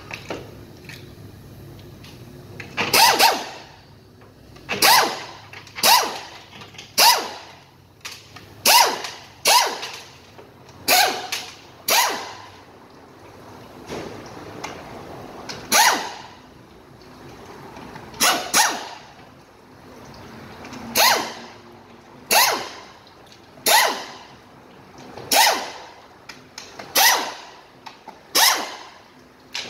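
Pneumatic air ratchet run in nearly twenty short bursts, one every second or two, spinning out the oil pan bolts of a Chevrolet 4L60-E automatic transmission.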